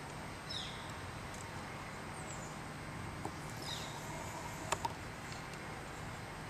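Quiet outdoor ambience with a steady low hiss, in which a bird gives a short call falling in pitch twice, about three seconds apart. A couple of faint clicks come a little past the middle.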